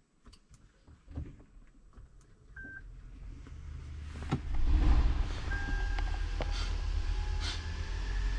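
Toyota Camry XV40 Hybrid being started from the cabin: a short beep, then a low rumble builds and its 2.4-litre four-cylinder petrol engine kicks in with a thump about four and a half seconds in and settles into a steady run with a steady high whine above it. The engine is running to charge the high-voltage battery.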